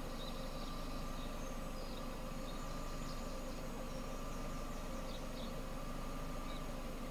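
Steady low rumble of a car driving, with a faint constant hum and a few faint short high chirps now and then.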